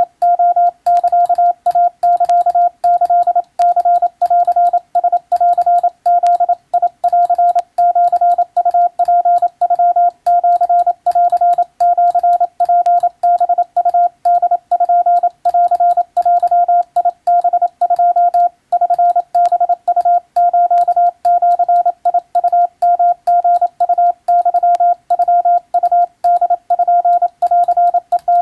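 Hand-keyed Morse code: a single mid-pitched sidetone beeping in a fast, even run of dots and dashes with short gaps between characters. It spells out Japanese-language (wabun) telegram text at around 17 words per minute.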